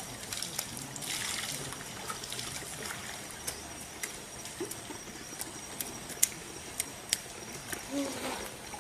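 Shallow river water trickling over rock, with a scattering of short, sharp splashes and clicks through the middle.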